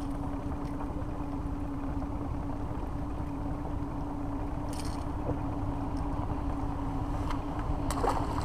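Outboard motor running steadily at low trolling speed, a constant hum over water and wind rumble. There are two faint clicks, about five seconds in and near the end.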